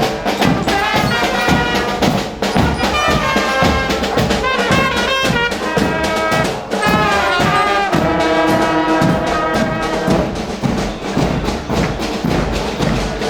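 Brass band with trumpets and trombones playing a march, with a crowd clapping along to the beat.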